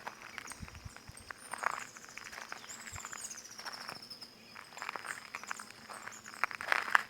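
Footsteps crunching on crystallised stones, a step about every second and a half, the loudest near the end. Birds sing over them, with one long falling whistle in the middle.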